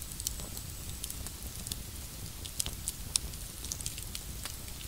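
Campfire crackling, with irregular sharp pops of burning wood; one about three seconds in is the loudest.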